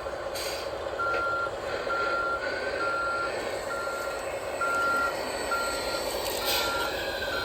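Backup alarm from an RC model vehicle's sound module: a single high beep repeating about once a second, starting about a second in, over a steady simulated engine hum.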